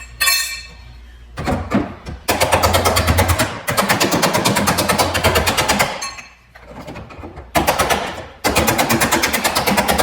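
Pneumatic air tool hammering in rapid, evenly spaced blows, in four bursts of one to two seconds with short pauses between, after a couple of single knocks.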